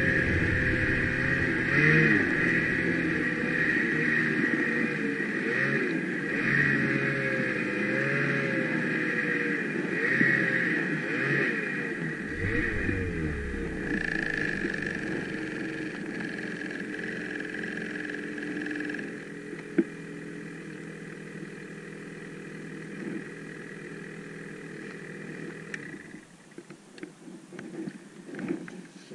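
Snowmobile engine running along a snowy trail, its pitch rising and falling with the throttle, then easing to a steady idle and cutting off about three seconds before the end.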